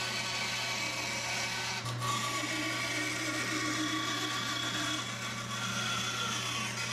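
Bandsaw running and cutting through oak plywood: a steady motor hum with the hiss of the blade in the wood.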